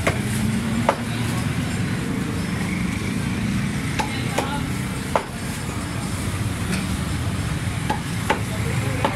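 Knife or cleaver chopping chicken on a wooden block: sharp knocks at irregular intervals, about eight of them, over steady street traffic noise.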